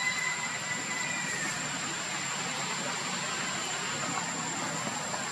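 Steady rushing background noise with a thin, constant high whine. In the first second or so, a faint thin whistling tone slides slightly downward.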